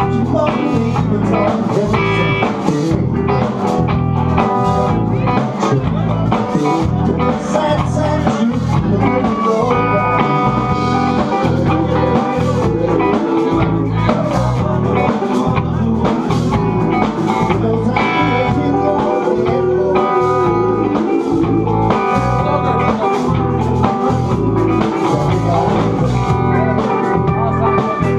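Live blues band playing: electric guitars, bass and drums, with a steady beat.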